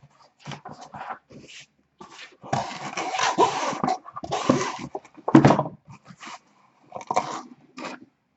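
Cardboard rustling and scraping in irregular short bursts as sealed boxes are handled and slid out of a freshly opened case.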